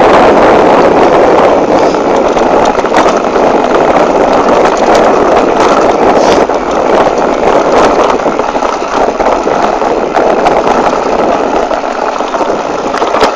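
Loud, steady rushing of wind on the microphone mixed with the rattle of a mountain bike ridden over a trail, with scattered knocks. It drops off sharply at the very end.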